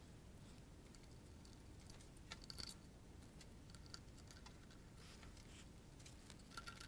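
Near silence with a few faint clicks and light scraping as hands fit the drive belt back onto a 3D-printed plastic robot actuator.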